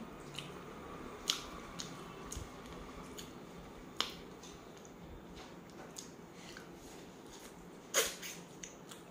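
Crab being eaten by hand: scattered sharp clicks and cracks of shell breaking, the loudest about eight seconds in.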